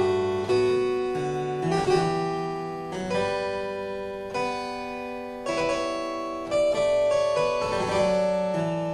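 Background instrumental music: struck, keyboard-like notes and chords that ring and die away, a new chord about every second.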